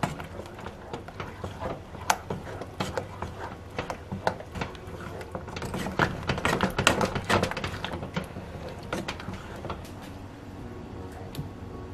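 Utensil clicking, tapping and scraping against a pot or bowl while warabi mochi is made, the strokes irregular and thickest about six to seven seconds in.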